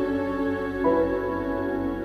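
Calm new-age background music with sustained chords that change a little under a second in.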